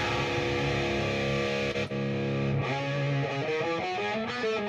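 Electric guitar played through a Peavey 6534+ EL34 tube amp head with high gain. A chord rings for about two seconds, is cut briefly and struck again, then a riff of changing notes is picked from about halfway.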